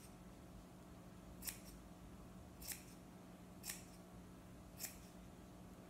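Scissors snipping through fleece, four short, sharp cuts about a second apart, as the ends of a braided fleece tug toy are cut into tassels.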